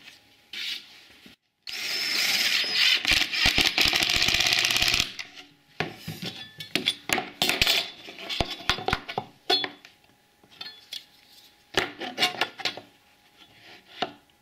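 A handheld power tool runs steadily for about three seconds, then a scatter of light metallic clicks and knocks as a metal corner clamp and steel angle brackets are handled against plywood.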